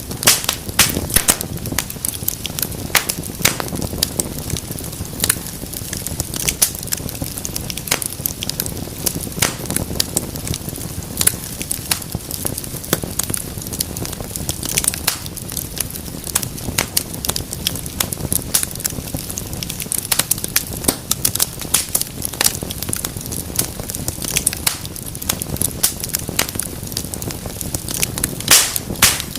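Wood fire in a fireplace crackling and popping, with many sharp irregular pops over a steady low rumble of flames and a faint hiss.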